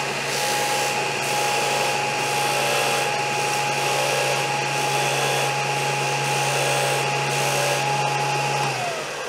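Porter-Cable bench disc sander running at full speed while the end of a wooden pen blank on its brass tube is sanded square against the disc. It gives a steady whine over a low hum and a hiss. Near the end the motor is switched off and the whine falls as the disc spins down.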